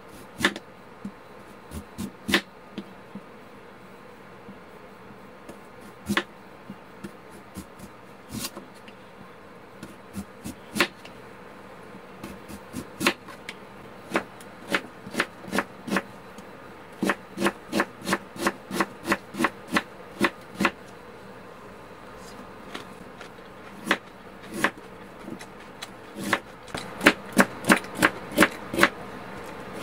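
Kitchen knife slicing white radish on a wooden cutting board: sharp knocks of the blade striking the board, scattered at first, then quick runs of about three chops a second near the middle and again near the end.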